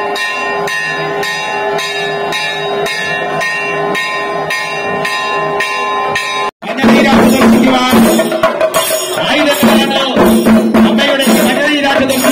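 A temple bell rung over and over, about two strikes a second, over a steady ringing. After a sudden break about halfway through, chenda drums are beaten fast and loud with ilathalam hand cymbals clashing: chenda melam.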